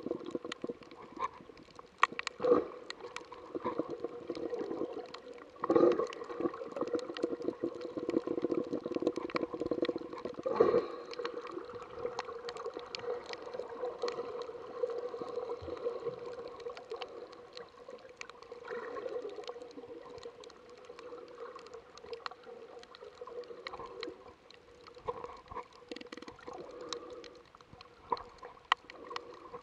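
Water heard underwater through an action camera's waterproof housing: a muffled rush and gurgle under a steady low hum, with many scattered sharp clicks and crackles. There are louder surges of water about two, six and eleven seconds in.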